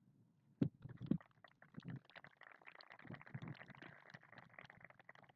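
Faint, scattered applause from a small crowd, heard over the public-address microphone. Two dull thumps come about a second in.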